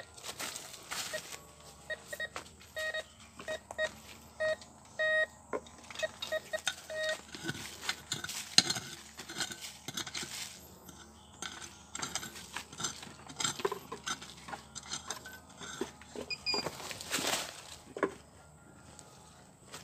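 MD 4030 metal detector giving a run of short, even-pitched beeps as it is swept over a buried metal target, followed by scattered scraping and knocking.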